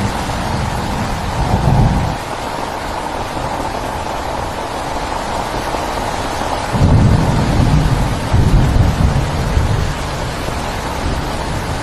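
Heavy rain falling in a steady hiss, with thunder rumbling low twice: briefly about a second in, and longer from about seven to nine and a half seconds in.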